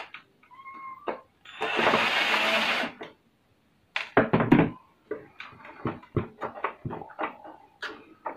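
Parts of a dismantled mini stereo being handled: a string of clacks and knocks from its plastic frame and sheet-metal chassis. A loud rushing noise lasting about a second and a half comes near the start.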